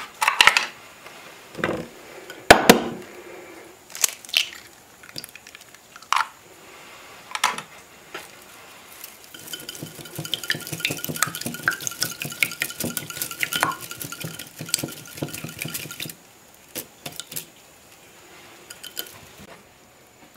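Eggs being beaten with a bundle-of-twigs whisk in an earthenware bowl: scattered knocks and taps, then from about nine to sixteen seconds a dense, fast clatter of the twigs against the bowl. A few soft taps follow near the end as slices are dipped in the egg.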